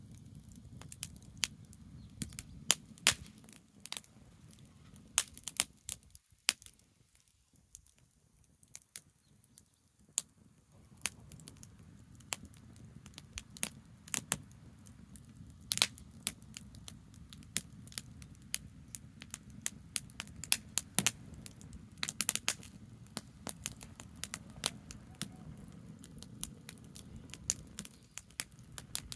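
Wood fire of burning branches, crackling with irregular sharp pops and snaps over a low steady background rumble.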